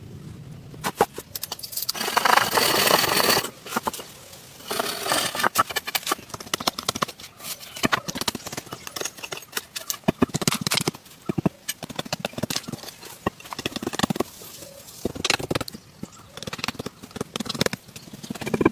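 Irregular knocking and scraping, many sharp knocks at an uneven pace, with longer stretches of rough scraping or rustling noise about two seconds in and again about five seconds in.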